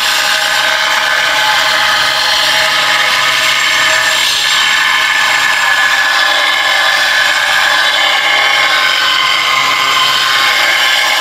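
Handheld angle grinder cutting through a ceramic tile: a steady whine with gritty grinding noise, running without a break.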